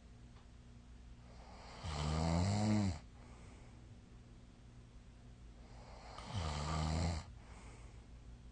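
A sleeping person snoring: two snores about four seconds apart, each lasting about a second, with a buzzing pitched tone that bends upward in the first.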